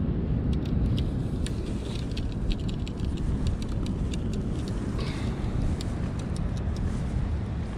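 Steady low rumble of wind and surf, with many light clicks and ticks from a fishing rod, reel and line being handled.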